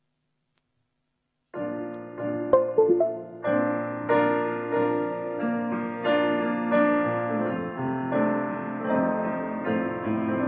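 Instrumental introduction to a hymn played on a keyboard: chords with a melody line, starting abruptly about a second and a half in.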